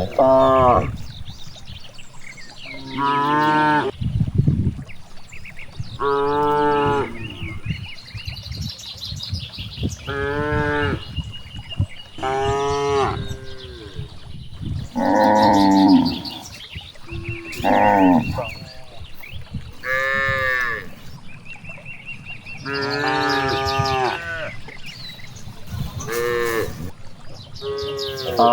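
Cattle mooing again and again: about ten drawn-out calls, each lasting around a second, coming every two to three seconds.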